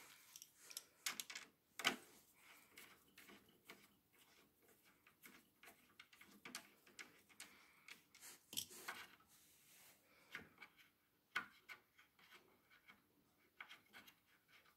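Faint, irregular clicks and scrapes of a screwdriver turning out the screw of a metal cabinet-door bracket, along with handling of the bracket. A few sharper ticks stand out among them.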